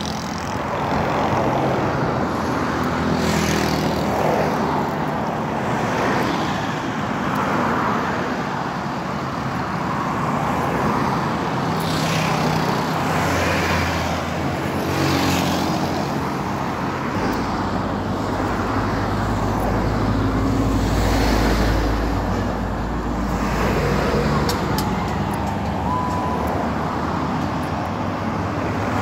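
Highway traffic heard from the roadside: cars and vans passing close by one after another, each swelling and fading. Past the middle, a heavy vehicle's low engine rumble builds and holds for several seconds.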